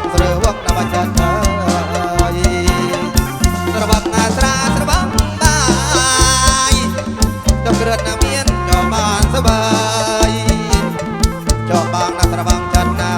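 Kantrum folk band playing an instrumental passage over a steady, fast drum beat, amplified through a PA system.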